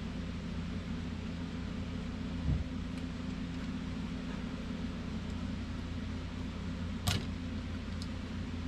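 A steel pick scraping and clicking at the small E-clip on a turbo wastegate actuator rod, over a steady low background hum. Near the end one sharp metallic click stands out, the clip popping off the rod.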